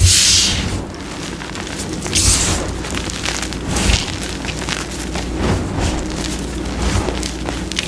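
Chunks of reformed gym chalk crunching and crumbling as hands squeeze and crush them, a dense crackle of breaking pieces. A louder rush of falling chalk comes at the start and again about two seconds in, over a low rumble.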